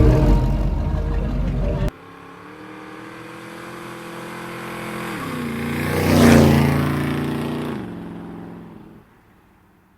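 A car engine runs loudly, then cuts off abruptly about two seconds in. A car then drives past, loudest about six seconds in, with its engine note dropping in pitch, and fades away by about nine seconds.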